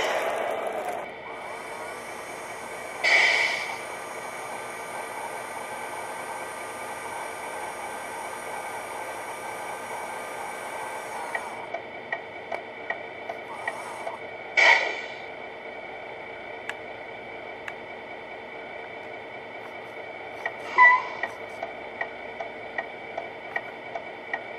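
Electronic truck engine sound from an RC truck's sound unit, running at a steady idle through its small speaker. It is broken by three short louder bursts, and from about halfway there is a regular ticking about twice a second.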